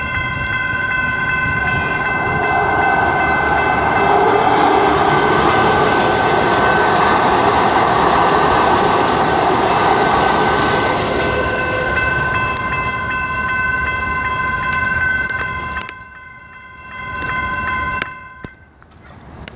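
ASC electronic railroad crossing bells ringing steadily while a light rail train passes over the crossing, its run over the rails adding a loud broad rush for several seconds. The bells stop near the end.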